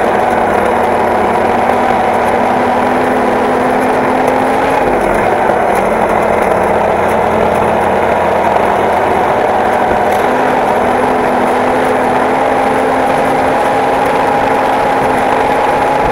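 A tractor's diesel engine running steadily under load, heard from inside the cab, with a slight drop in pitch about five seconds in.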